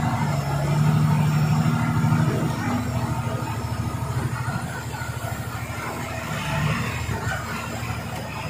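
Tata 3118 truck's diesel engine running under way, heard from inside the cab, with road noise. The engine hum is strongest for the first couple of seconds, then eases.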